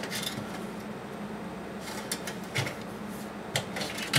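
Cables and plastic connectors being handled and pulled free inside an open metal desktop PC case, giving a few short sharp clicks and light rattles, the clearest in the second half, over a faint steady hum.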